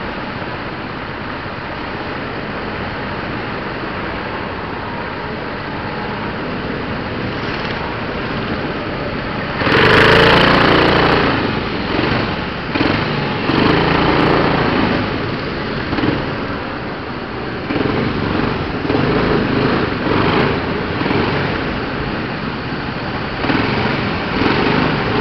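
Go-kart engine heard from a camera mounted on the kart: steady running at first, then about ten seconds in it revs up loudly and keeps rising and falling as the kart accelerates and lifts off around the track.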